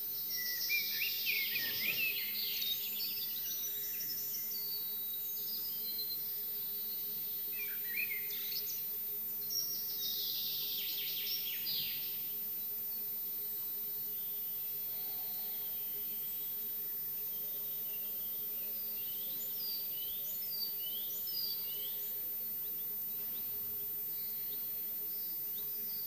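Songbirds singing in the dawn chorus: a loud song phrase at the start, two more about 8 and 10 seconds in, and fainter, more distant songs a little before the end. A steady faint low hum lies beneath.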